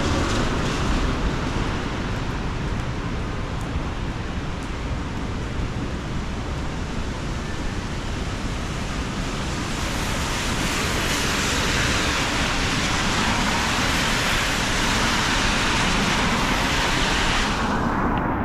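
Street traffic on a wet road: a steady hiss of tyres and engines with no distinct strokes. It swells through the second half, then the hiss drops away suddenly just before the end.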